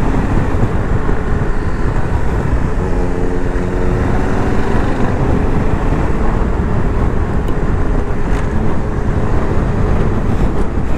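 Cruiser motorcycle engine running steadily at road speed, heard from the rider's seat over a heavy low rush of wind and road noise.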